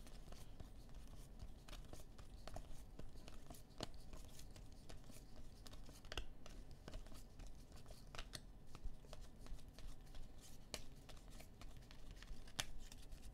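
Stack of 2020 Score football trading cards being flipped through by hand, card by card: faint, irregular clicks and brief slides of card stock against card stock.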